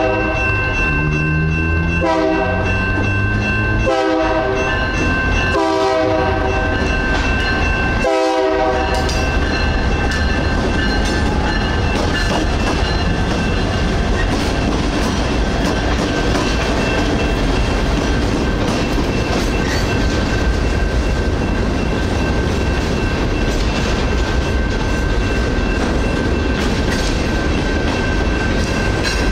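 Horn of a Union Pacific EMD SD59MX freight locomotive sounding in several long blasts with short breaks, the last ending about eight seconds in, over the steady ringing of the crossing's signal bell. The locomotives and then the freight cars rumble and clack past the crossing, with the bell still ringing.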